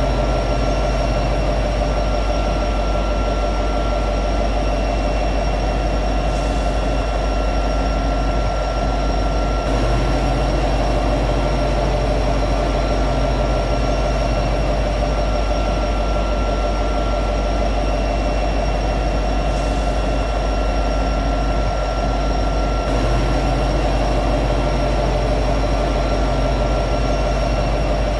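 EMD SD70ACE diesel-electric locomotive standing at high idle, its 16-cylinder two-stroke EMD 710 engine running steadily with a constant hum.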